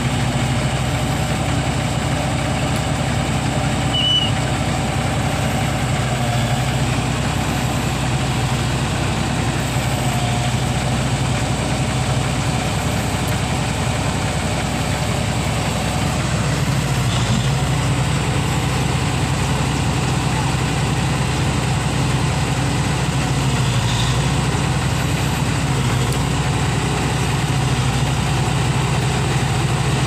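Heavy diesel engine idling steadily with an even low hum that holds unchanged throughout.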